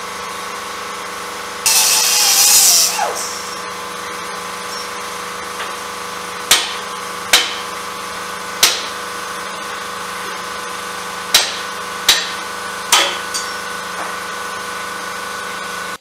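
Shop tool work on a truck's leaf-spring hardware over a steady machine hum. There is a loud burst of hissing about two seconds in, then six sharp metal knocks spread over the following seconds.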